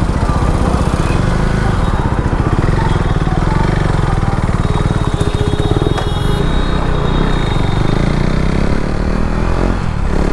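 KTM Duke 390's single-cylinder engine running steadily while the motorcycle is ridden, with a fast, even firing pulse.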